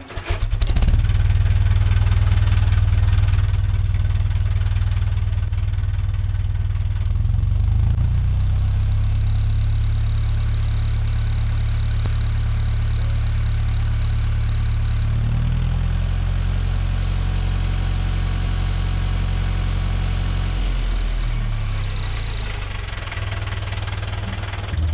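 Tractor engine running with no exhaust fitted, loud and steady, changing speed a couple of times. A thin, high, steady whine joins it about seven seconds in and stops about twenty seconds in, and near the end the engine slows and quietens briefly before picking up again.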